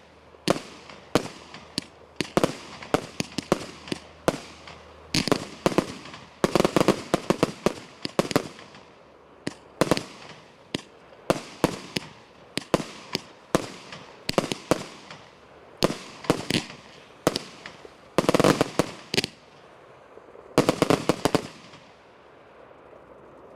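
Thunder Bomb multi-shot firework cake firing: a long series of loud, sharp bangs, about one or two a second, each ringing out briefly. Three quick volleys of bangs come in between, one a few seconds in and two near the end, after which the firing stops.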